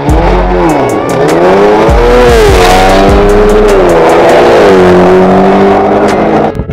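Cars launching off a drag-strip start line and accelerating hard. The engine note climbs, drops back and climbs again several times as it shifts up through the gears.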